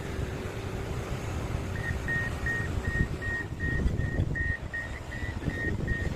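Warning alarm on heavy construction equipment, a repeated single-pitch high beep about three times a second, starting a couple of seconds in over the low rumble of a diesel engine running. This is the kind of alarm that sounds while a machine travels or reverses.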